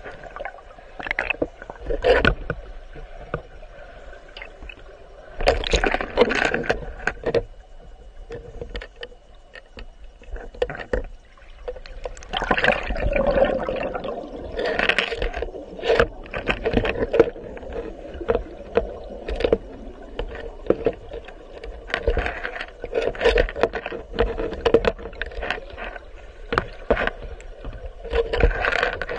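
River current rushing and gurgling around a camera held underwater, in irregular surges with scattered clicks and knocks.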